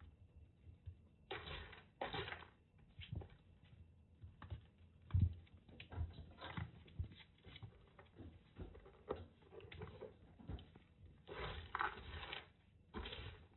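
Kittens scampering and tussling: irregular light paw patter, scuffs and soft knocks, with a few short rustling scuffles, the longest about two-thirds of the way through.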